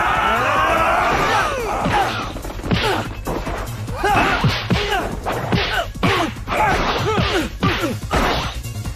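Cartoon fight sound effects: a crowd of gang members yelling, then a rapid string of punch and kick impacts, each with short shouts and grunts from the fighters.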